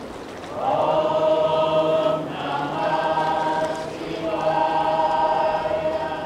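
A choir of voices singing long held chords in three phrases, each swelling in and lasting about one and a half to two seconds, with short dips between.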